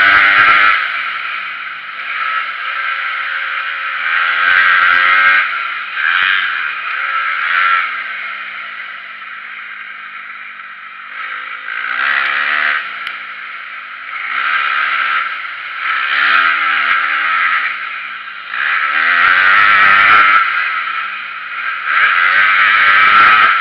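Dirt bike engine on a motocross track, revving hard and backing off again and again as the rider opens and closes the throttle through the laps. About six loud peaks of full throttle, with quieter stretches in between.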